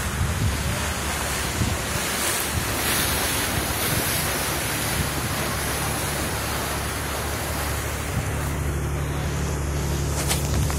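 Wind buffeting the microphone over the rush of water along the hull of a sportfishing boat under way, with a steady low engine drone underneath. A couple of sharp clicks sound near the end.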